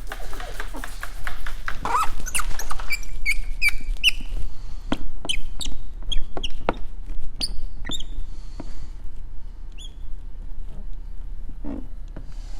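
Short high-pitched squeaks and sharp ticks of wet paint protection film being handled, stretched and pressed onto the bumper, about a dozen irregular chirps, thinning out near the end.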